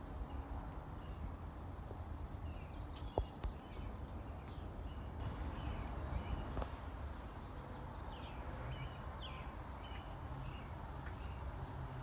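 Small birds chirping, with many short calls repeating throughout, over a steady background of light rain.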